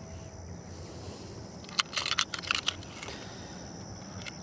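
Handling noise: a quick cluster of light clicks and rustles about two seconds in, over a low steady outdoor background.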